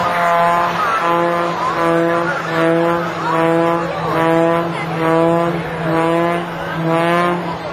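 Aerobatic biplane's piston engine and propeller, its sound swelling and fading in a regular pulse a little more than once a second as the plane tumbles through a maneuver, over a steady low drone.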